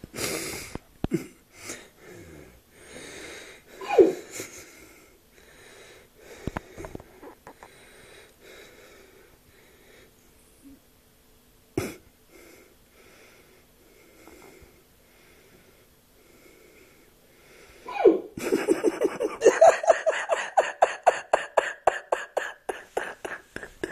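A drunk man hiccuping and breathing heavily in his sleep, with one loud hiccup about four seconds in. Near the end comes a long run of quick wheezing pulses, several a second.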